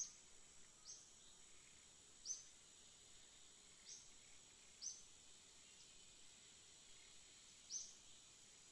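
Faint, high chirps from a small bird, each a quick falling note, repeated every one to three seconds over a steady, high insect buzz.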